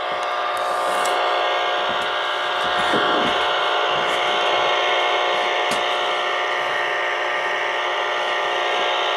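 Sonar FS-23 tube AM CB radio's speaker giving out steady static on an open channel between transmissions, with its automatic noise limiter switched on. The hiss is held to a narrow band, with several faint steady tones running through it.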